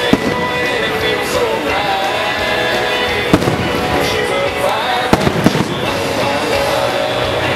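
Aerial firework shells bursting in sharp bangs, one at the start, one about three seconds in and three in quick succession just after five seconds, over loud music with singing.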